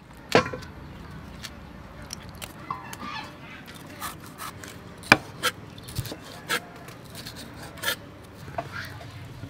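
Cleaver knocking on a wooden chopping board while cutting red bell pepper, in irregular sharp strikes, with a few short clucking calls in the background.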